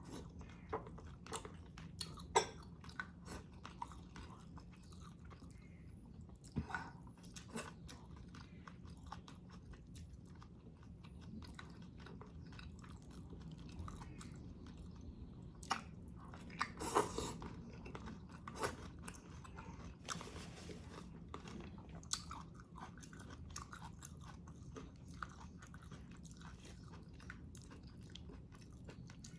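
Close-miked chewing and biting with many short, sharp mouth clicks and crunches scattered throughout, busiest about two-thirds of the way in.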